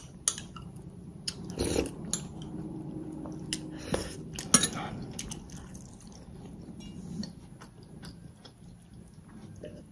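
Close-up eating sounds: a metal spoon clinking and scraping against a glass dessert cup, with chewing and wet mouth sounds from spoonfuls of a milk-and-noodle dessert. The sharpest clink comes about four and a half seconds in; the sounds thin out in the second half.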